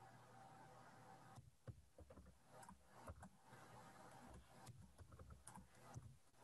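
Faint typing on a computer keyboard: a password being keyed in, heard as scattered, irregular keystroke clicks.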